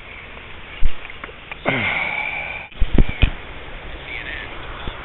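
Stream water running over a riffle, with several dull knocks, the loudest two close together about three seconds in. A breathy hiss with a thin whistle lasts about a second just before them.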